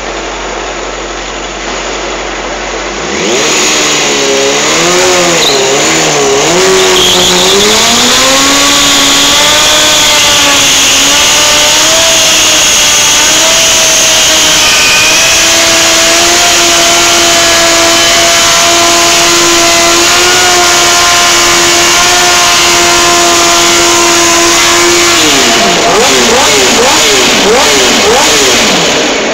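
Sport motorcycle doing a stationary burnout: the engine idles, then about three seconds in it is revved hard with the rear tyre spinning on the concrete floor, a loud hissing screech under the engine. The revs rise and wobble, are held steady and high for about ten seconds, then the throttle is blipped quickly several times near the end.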